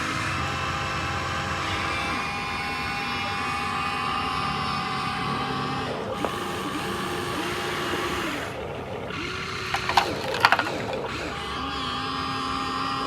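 Motors of a Huina 1593 radio-controlled toy excavator whining steadily, the pitch stepping up and down as the arm and bucket functions change. A few sharp knocks come a little after ten seconds in.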